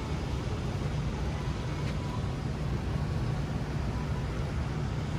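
Steady road-traffic noise: a continuous low rumble of vehicles on a busy city boulevard, with no single vehicle standing out.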